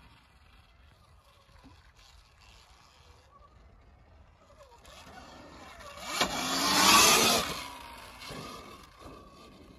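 Sur-Ron electric dirt bike riding down a dirt trail and passing close by. Its motor whine, gliding in pitch, and its tyre noise swell past the middle to a peak, then fade as it rides away.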